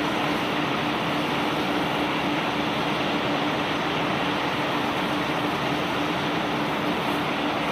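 Ship-unloading conveyor belt running steadily under a load of bulk cargo: a constant rumbling rush with a steady hum underneath.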